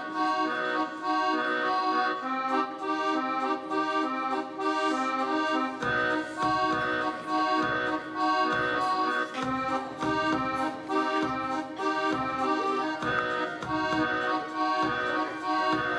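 Accordion music playing a dance tune in the style of a bal populaire; a steady bass beat joins about six seconds in.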